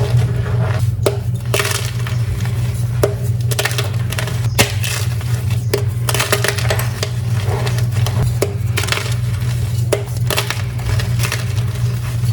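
Blocks of dyed gym chalk being crushed and crumbled, a run of irregular dry crunches and crackles with a few sharper cracks. A steady low hum runs underneath.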